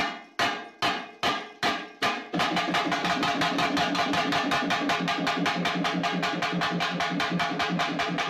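Background music led by percussion: single decaying drum strikes about two and a half a second, breaking about two seconds in into a fast, steady drum rhythm over a held low tone.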